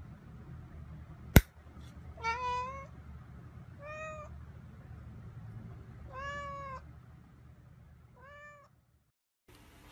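A single sharp click from a tin of cat food, the loudest sound, then a ginger cat meows four times. The meows are short, rise and fall in pitch, and come about every two seconds.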